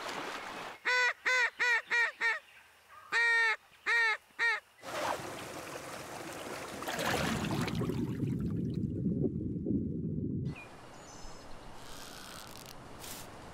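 Geese honking: about nine short, clear honks in two quick runs. Rushing river water follows and cuts off suddenly, leaving a few faint ticks.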